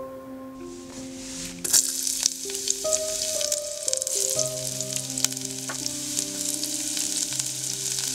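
Chopped garlic, ginger and spring onion frying in hot sunflower oil: the sizzle starts suddenly about two seconds in as the garlic goes into the oil, then goes on with crackles and pops. Soft background music plays underneath.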